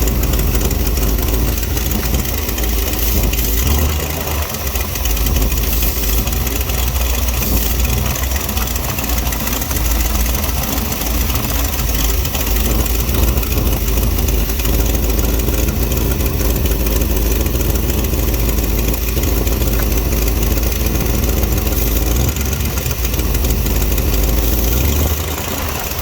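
Engine idling steadily with a vacuum leak.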